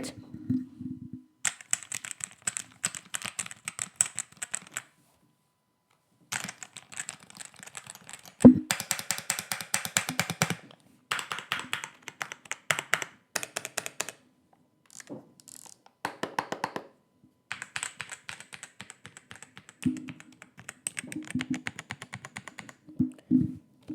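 Typing on an ISY 75% budget keyboard: rapid key clicks in several bursts of a few seconds each, separated by short pauses. There is a single heavier thump about eight and a half seconds in.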